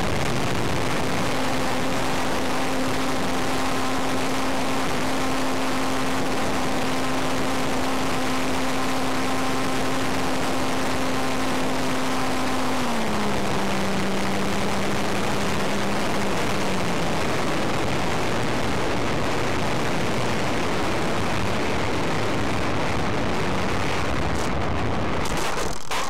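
RC model airplane's motor and propeller heard from a camera mounted on its fuselage, under loud rushing air: a steady hum that drops in pitch about halfway through, then fades into the wind noise. A few knocks near the end as the plane comes down on the pavement.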